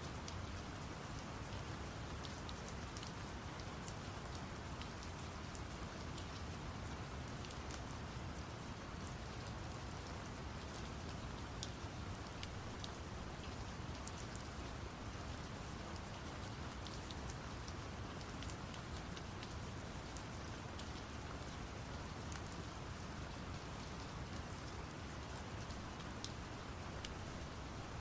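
Steady rain with many small scattered drop ticks, layered over brown noise.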